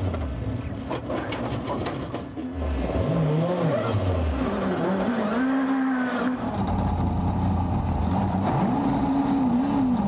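Rally car engine heard onboard, revving up and dropping back again and again, with a run of sharp clicks in the first couple of seconds.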